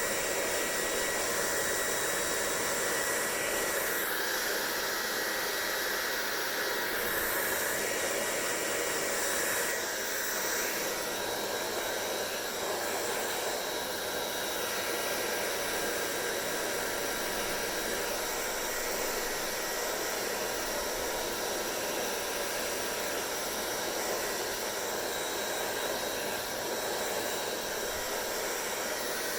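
Hair dryer blowing steadily: a rush of air with a thin high whine from its motor. For several seconds, starting about four seconds in, the airflow turns brighter and hissier, then it settles again.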